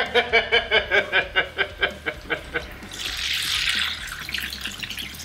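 Someone laughing in quick even pulses, then hot oil in an electric deep fryer sizzling in a burst about three seconds in as battered food is lowered into it by hand.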